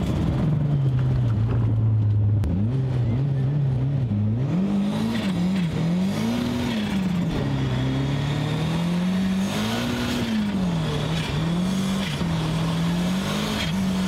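Car engine heard from inside the cabin while driving, its pitch rising and falling repeatedly as the revs climb and drop through the gears.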